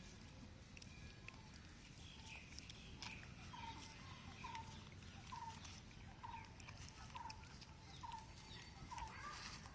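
Faint bird call in the background: a short, slightly falling note repeated evenly, about one every 0.8 seconds, starting a few seconds in. Small clicks are scattered through it.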